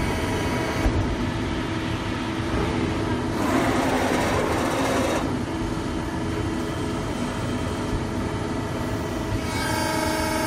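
CNC hydraulic press brake running: the steady hum of its hydraulic power unit, with a louder rushing hiss for about two seconds a few seconds in and a pitched whine starting near the end as the machine's axes move.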